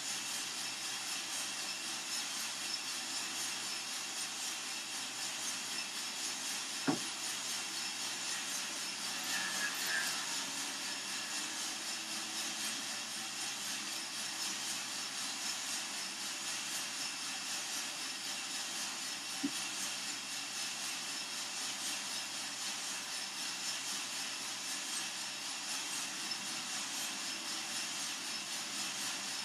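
Coffee-Tech FZ-94 lab drum roaster running mid-roast: a steady rushing noise of its fan and the coffee beans tumbling in the rotating drum. Two brief sharp clicks come about seven seconds in and again near twenty seconds.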